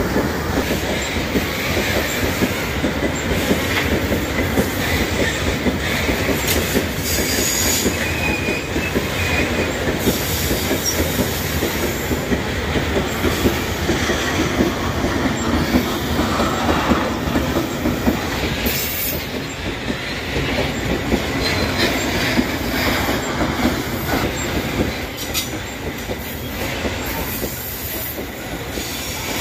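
Loaded freight train of steel gondola ore wagons rolling past on the rails: a steady rumble of wheels with clickety-clack over the rail joints and now and then a high wheel squeal.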